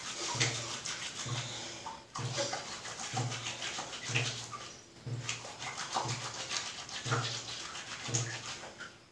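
Hands squeezing and rubbing a wet, tree-made shampoo to work up a lather, a squelch about once a second.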